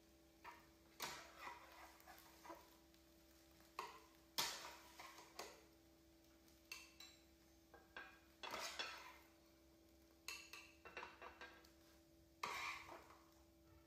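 Metal spatula knocking and scraping in a nonstick frying pan and against a ceramic plate while a pancake is cut and lifted out, in scattered short clinks and scrapes with one longer scrape about halfway through. A faint steady hum runs underneath.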